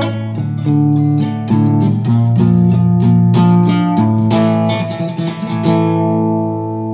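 Archtop guitar playing a song's instrumental ending, a run of picked chords and notes. Near the end a final chord is struck and left to ring, slowly fading.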